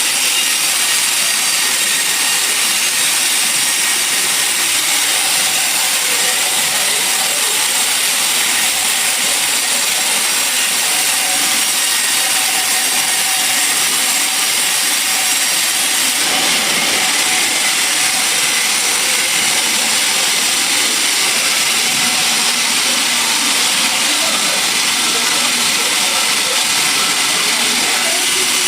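Sawmill saw cutting through a log, a steady, unbroken sawing noise.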